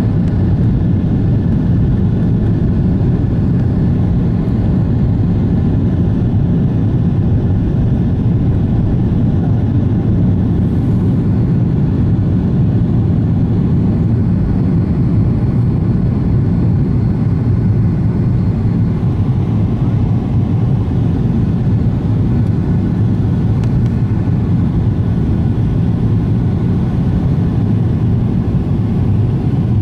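Steady low cabin noise of a Boeing 777-300ER climbing after takeoff, its two GE90-115B turbofans at climb power heard from inside the cabin as an even, deep rumble.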